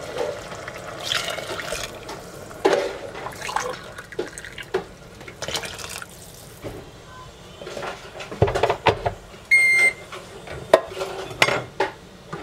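Water being poured in several pours from a glass into a stainless steel pot of cooked ground beef, with knocks against the pot. A short electronic beep sounds near the end.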